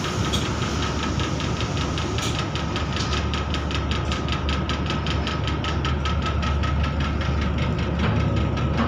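Electric train's onboard machinery running, heard inside the carriage: a steady low hum and a steady high whine, joined about three seconds in by a fast, even knocking at roughly five beats a second.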